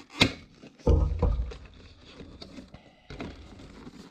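Cardboard retail box of a GoPro Smart Remote being handled and opened: a sharp tap about a quarter second in, a heavier knock about a second in, then scattered clicks and rustling of the packaging.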